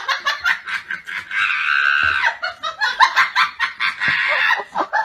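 A person laughing hard in a fast, high-pitched run, with one longer squealing note about a second and a half in.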